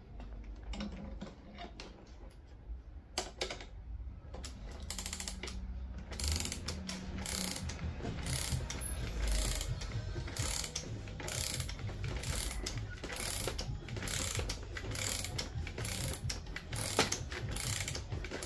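Hand ratchet clicking in repeated runs as it turns the forcing screw of a jaw puller, pressing the all-rubber OEM bushing out of a Honda Fit front control arm. A few scattered clicks at first, then steady clicking from about five seconds in.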